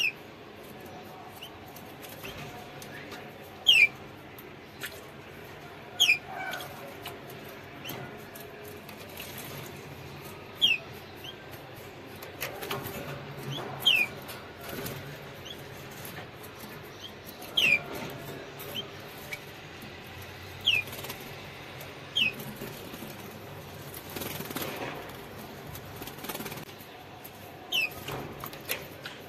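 A canary bathing in a shallow dish of water, splashing and flapping its wet wings in several longer rushes, while single short chirps that fall in pitch come every two to four seconds.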